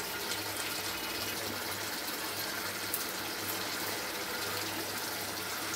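Steady bubbling hiss of a thin fish curry simmering in a pan on the stove, with a low steady hum underneath.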